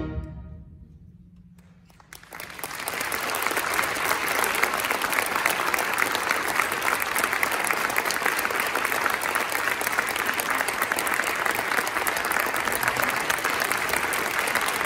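The last chord of a concert band dies away, then about two seconds in the audience breaks into steady applause.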